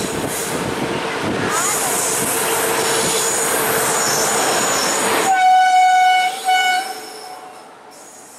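A train running past with dense rail noise and a steady thin squeal. About five seconds in it sounds two horn blasts, a longer one and then a short one, after which the running noise falls away.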